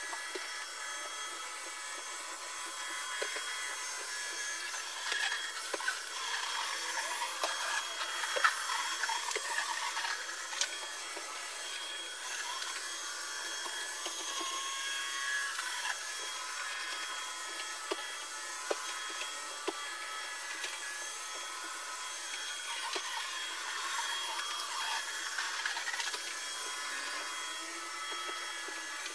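A vacuum cleaner running with a steady hiss, its brushes and body rubbing and clicking against the floor in uneven swells.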